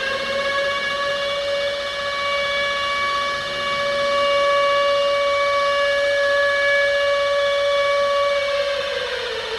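Air-raid warning siren wailing: it reaches its top pitch right at the start, holds one steady note, then begins to wind down about a second before the end. It sounds the alarm for an imminent nuclear attack.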